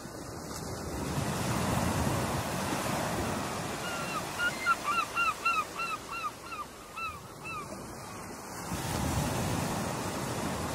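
Ocean surf breaking and washing, swelling about two seconds in and again near the end. In the middle a bird calls a quick run of about ten short, falling notes.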